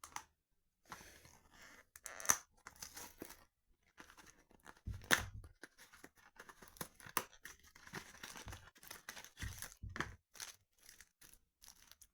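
Foil booster-pack wrapper being torn open and crinkled in the hands, with irregular sharp crackles and rustles.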